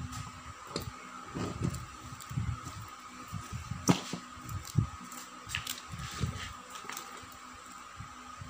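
Office chair seat being fitted onto its gas-lift cylinder and pressed down by hand: irregular knocks and handling noises, with a sharp click about four seconds in. A faint steady high tone runs underneath.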